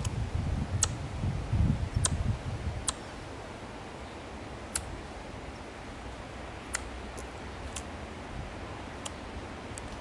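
Ezo squirrel (Hokkaido red squirrel) giving short, sharp calls that sound like tongue clicks: about nine single clicks, irregularly spaced roughly a second apart, probably a threat call. A low rumbling noise runs under the first three seconds.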